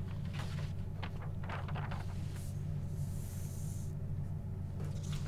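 Paper being handled on a table: a few short rustles in the first two seconds, then a brief high hiss about three seconds in, over a steady low hum.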